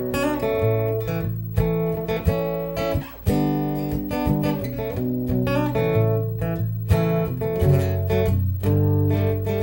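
Acoustic guitar played solo, chords and notes ringing out, with a short break about three seconds in.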